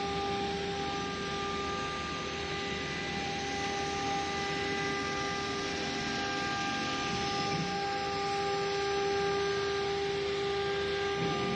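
Milling machine spindle running steadily while cutting plastic: an even, unbroken whine over a steady hiss.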